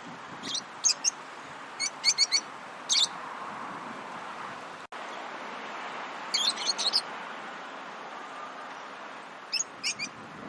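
Lovebirds chirping: five quick clusters of short, high chirps, a second or a few seconds apart, with a pause of about three seconds near the middle, over a steady background hiss.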